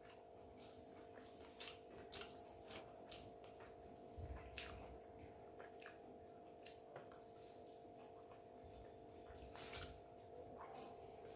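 Faint wet chewing and mouth clicks of a person eating food, a soft smack every second or so, over a steady electrical hum.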